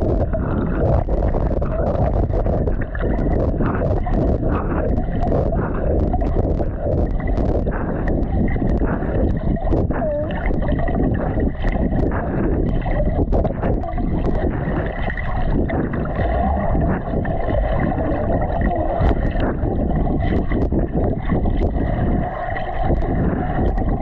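Churning, rushing water heard close up, muffled and heavy in the low end, with many small knocks and clicks throughout.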